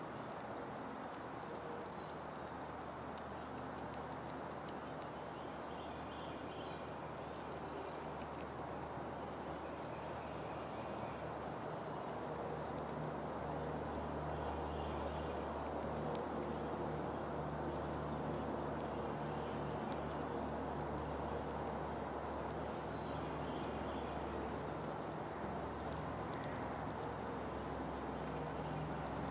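Insects, crickets by the sound, trilling in one unbroken, high-pitched chorus over a low background rumble.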